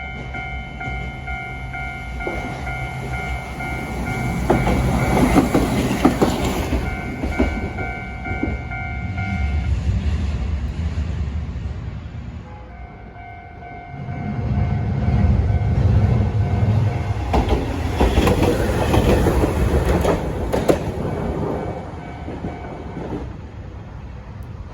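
A Japanese level-crossing warning bell rings with a steady electronic tone while a Hankai Tramway tram rumbles and clatters past. The bell stops for a few seconds, starts again, and a second tram passes.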